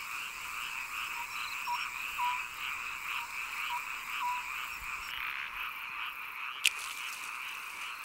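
Night chorus of frogs: many calls run together into a steady pulsing at about three a second, thin and high with no low end. A single sharp click sounds near the end.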